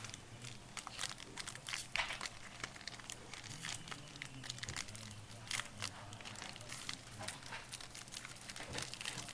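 Foil trading-card pack wrapper crinkling in irregular rustles as it is handled and opened by hand.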